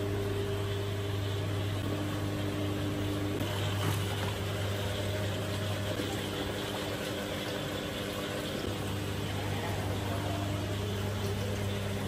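Steady mechanical hum of aquarium pumps and filtration equipment: a low drone with a few fainter steady tones above it and a soft hiss.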